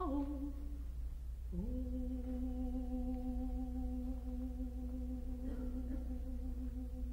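A man humming with closed lips: a short note at the start, then, about a second and a half in, one long steady note that slides up into pitch and is held. A low steady drone runs underneath.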